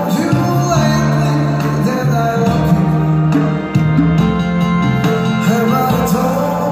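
A man singing a song into a microphone, amplified through small speakers, over backing music with held bass notes.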